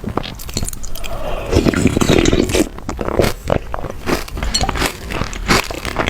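Close-miked eating of chocolate: biting and chewing with many short crunches and clicks, and a denser stretch of chewing about a second and a half in.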